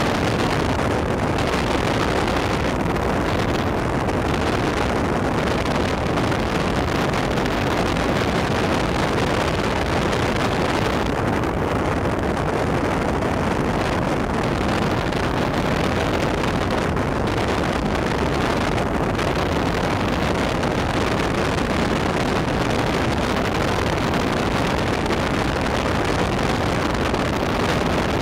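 Outboard-powered boats running at planing speed: a steady rush of motor, water and wind noise with no distinct engine note standing out, and wind buffeting the microphone.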